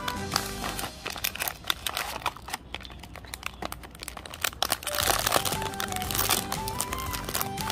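Crinkling of a foil blind-box bag as it is handled and torn open at its top, over background music; the music drops out about half a second in and returns about five seconds in.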